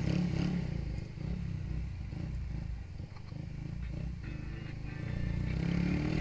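Haojue Chopper 150's single-cylinder engine running at low road speed, with a low steady drone. About five seconds in it grows louder and rises in pitch as the bike accelerates.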